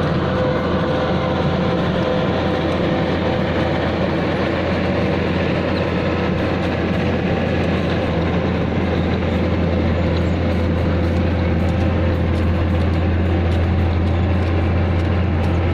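Heavy road-paving machinery's diesel engine running steadily, a deep constant hum with mechanical noise over it, growing slightly louder near the end.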